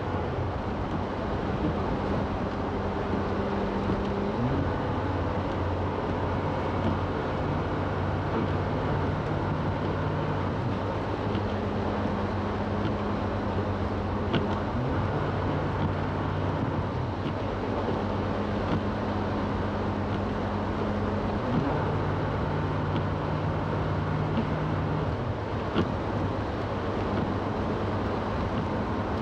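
Car driving through slush on a snow-covered highway, heard from inside the cabin: a steady wash of tyre and road noise with a low engine hum whose pitch shifts up and down every few seconds.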